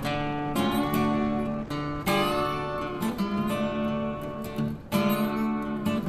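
Background music: strummed acoustic guitar chords, changing every second or two.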